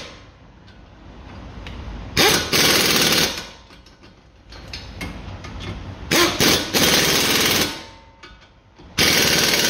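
Pneumatic ratchet running in three rapid rattling bursts, each a second or so long, as it tightens the nuts on the front wheel hub assembly.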